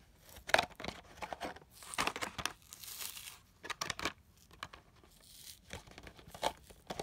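Plastic blister pack and cardboard backing of a toy car package being pulled and torn open by hand: irregular crackling and tearing, busiest about two to three seconds in.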